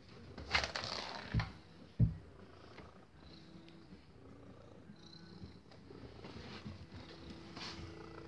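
Domestic cat purring. A rustle and two thumps come in the first two seconds or so.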